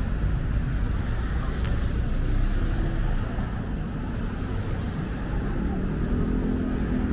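City street ambience: a steady low rumble of road traffic, with passers-by's voices coming in near the end.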